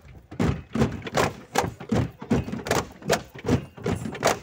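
Bamboo poles of the Mizo Cheraw bamboo dance clapped together and struck on the base poles: sharp, evenly spaced wooden clacks, about two and a half a second.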